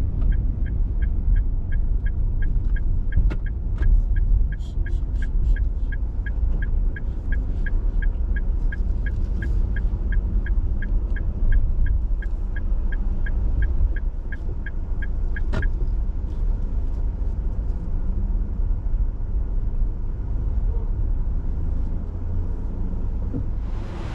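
Car turn-signal indicator ticking evenly about two and a half times a second over the low rumble of the car driving, heard inside the cabin; the ticking stops with a sharper click about 15 seconds in, leaving only the road rumble.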